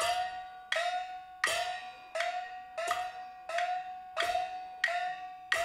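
Backstage percussion for a Taiwanese glove-puppet show: a small pitched gong struck in a steady beat, about three strokes every two seconds. Each stroke rings with a clear note that bends up slightly and fades before the next.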